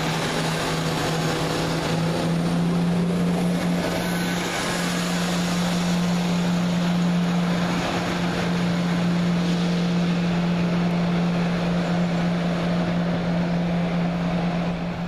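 Class 170 Turbostar diesel multiple unit in the station, its underfloor diesel engines giving a loud, steady drone.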